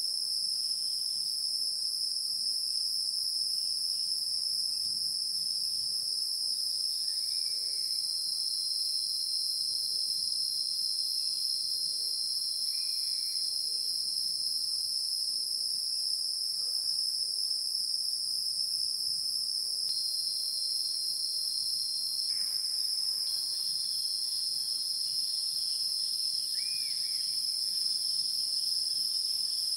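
Steady, shrill high-pitched insect chorus trilling without a break, with a few faint short chirps here and there.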